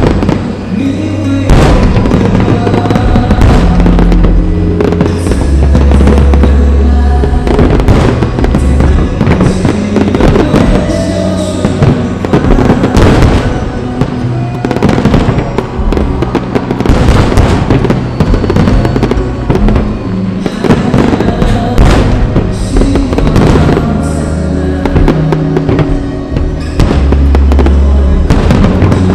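Fireworks display: many bangs and crackles in quick succession over loud music with sustained low bass notes.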